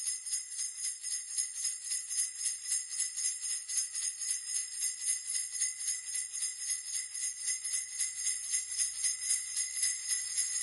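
Sleigh bells shaken in a steady rhythm, a continuous jingling of many small bells that grows a little louder toward the end.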